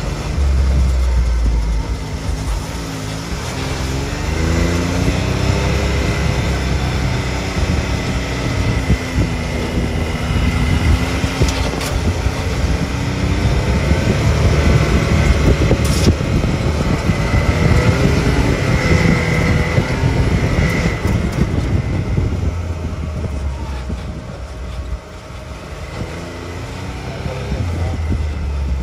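Side-by-side UTV engine running under changing throttle on a rough trail, its pitch rising and falling again and again, over a low rumble and rattle from the machine, with a couple of sharp knocks.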